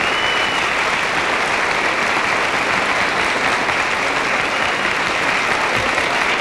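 A large audience applauding steadily and without a break.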